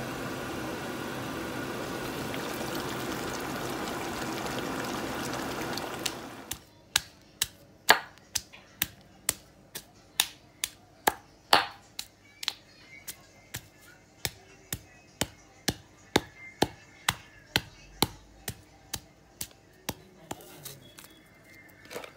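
A stone pestle pounding in a granite mortar, sharp knocks at about two a second, starting about six seconds in after a steady, even noise.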